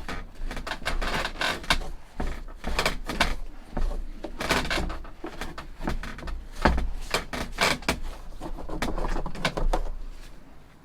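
Irregular scraping, clicking and knocking of tools working on a hard plastic headlight casing during a plastic-welding repair, over a steady low hum.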